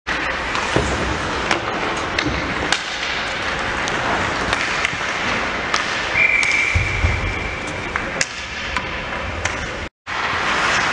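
Ice hockey rink sound during play: a steady din with skates scraping and sticks and puck clacking in short sharp knocks. About six seconds in, a steady high whistle sounds for nearly two seconds.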